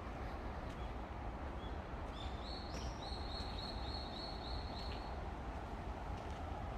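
A songbird singing a run of short, high, repeated notes for about three seconds, over a steady low background noise.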